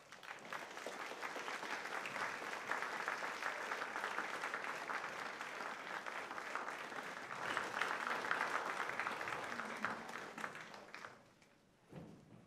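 Audience applauding: the clapping starts at once, swells, and fades out about a second before the end.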